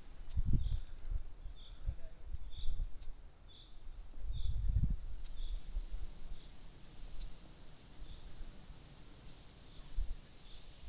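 Outdoor natural ambience: a steady high-pitched trill with a short chirp repeating about once a second, typical of insects or birds, over low rumbles and thumps from wind or handling at the microphone.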